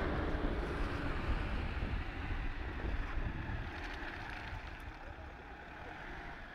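Mitsubishi Pajero's engine running as the SUV drives slowly on wet ground, with wind buffeting the microphone. It gets quieter after about four seconds.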